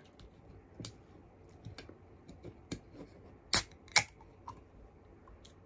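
Light clicks and taps from a metal drink can being handled, with two sharper, louder clicks about three and a half and four seconds in.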